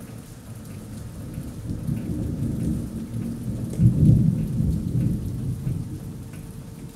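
Rolling thunder: a low rumble that swells to its loudest about four seconds in and then dies away, over steady rain.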